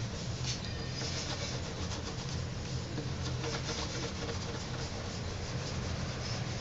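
Electric potter's wheel running with a steady low hum, with continuous scratchy rubbing and scraping against the spinning clay bowl.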